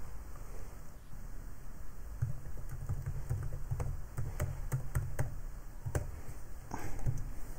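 Computer keyboard keys clicking in a short burst of typing, about two or three keystrokes a second, mostly from about two seconds in until near the end.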